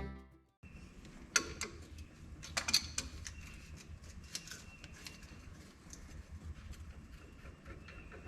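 Wrenches clicking and clinking on the metal fittings of a tractor's hydraulic quick-connect coupler: scattered sharp taps, a few louder ones about a second and a half and nearly three seconds in, over a low steady hum.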